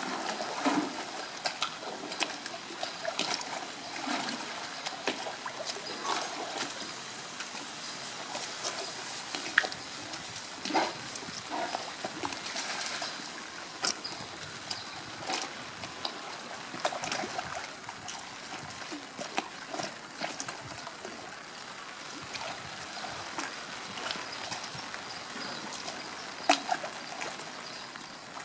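Pool water sloshing and splashing as a polar bear cub swims and pushes a plastic bucket about, with scattered short, sharp splashes throughout.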